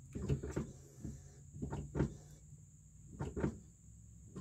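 Brake pedal of a Nissan Armada being pumped from inside the cab: three dull knocks about a second and a half apart, each a quick double knock as the pedal goes down and comes back up, building line pressure for a brake bleed.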